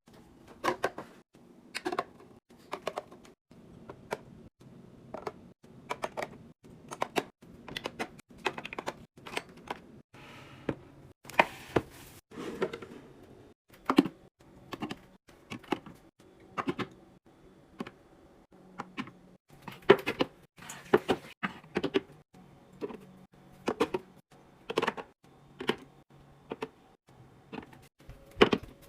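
Containers and packaging being handled and set down on fridge shelves: irregular light clicks and knocks, a few a second, with a brief rustle about eleven seconds in.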